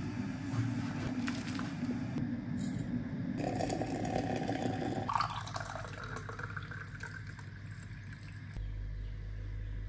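Water poured in a stream into a ceramic jug of loose-leaf tea, then the brewed tea poured through a mesh strainer into a glass, changing abruptly a few times.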